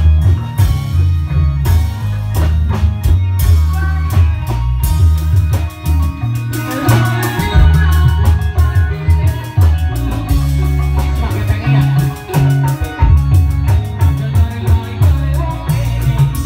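Loud music accompanying a reog dance: a steady drum beat over heavy bass, with a melody line that comes in about six and a half seconds in.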